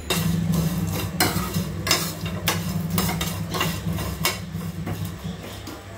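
A spatula stirring and scraping whole spices and coconut as they dry-roast in a kadai, a short stroke about twice a second. Under it is a steady low hum that stops about five seconds in.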